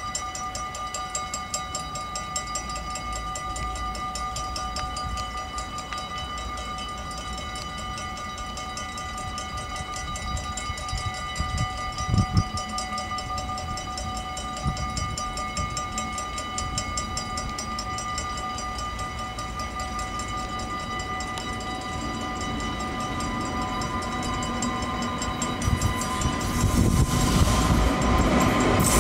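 Level crossing warning bell ringing in rapid, even strokes as a freight train approaches. Near the end the rumble of the double-headed Railion electric locomotives and their tank wagons grows louder as they reach the crossing.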